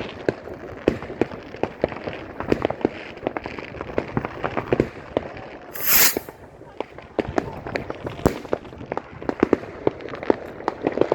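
New Year's Eve fireworks and firecrackers going off all around: many sharp bangs and cracks at irregular intervals, with a brief loud hiss about six seconds in.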